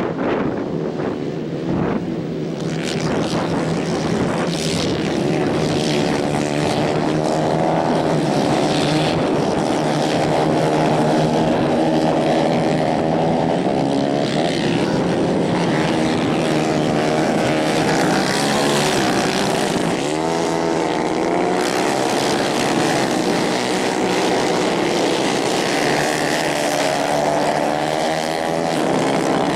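Several 150cc racing kart engines running at high revs, the pitch sweeping up and down as the karts accelerate, lift off for the corners and pass by, with a pass-by drop and rise in pitch about twenty seconds in.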